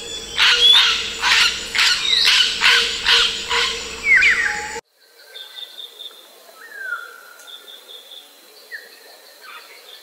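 African grey parrot giving loud, harsh calls with sliding pitch, about two a second. About five seconds in the recording cuts abruptly to a quieter passage of scattered thin whistled chirps over a steady high-pitched tone.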